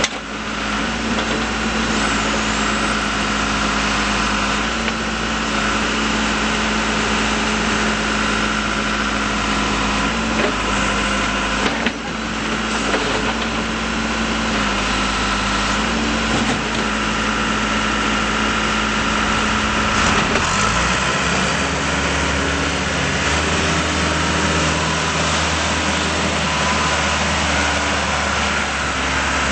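Case 580L Series II backhoe loader's diesel engine running steadily. Its engine speed shifts a couple of times: briefly around twelve seconds in and again after about twenty seconds.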